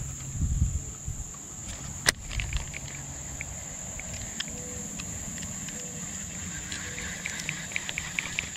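Steady high-pitched drone of insects. A sharp click comes about two seconds in, then light scattered ticks as a baitcasting reel is cranked to retrieve the lure.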